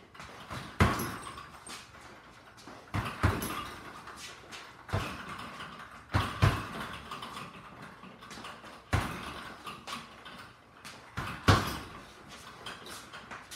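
Punches landing on a hanging heavy bag: about seven sharp thuds spaced one to three seconds apart, including a quick double about three seconds in, each followed by a brief echo.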